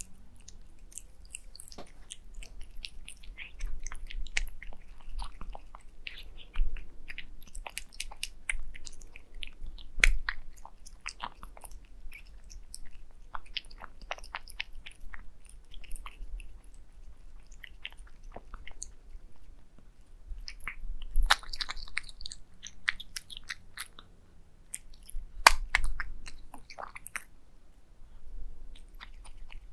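Cats eating wet cat food mixed with egg yolk from a glass plate: wet chewing, with irregular sharp clicks throughout.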